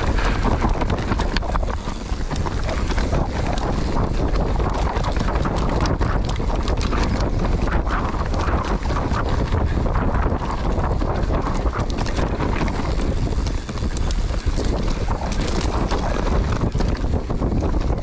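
Wind buffeting the microphone of a mountain bike descending a steep, loose dirt trail, with tyres rolling over dirt and brash and the bike rattling and clattering over bumps.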